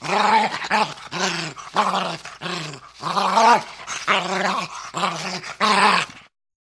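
A bull terrier growling: a quick run of short, pitched growls, one after another. It cuts off suddenly about six seconds in.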